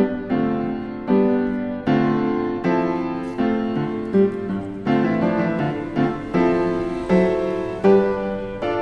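Background music: piano or electric piano playing a gentle melody, with new notes struck about twice a second and each fading out.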